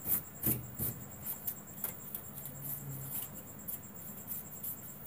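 Faint irregular clicks and crackles over a steady high-pitched whine, from a CRT television being switched on and handled.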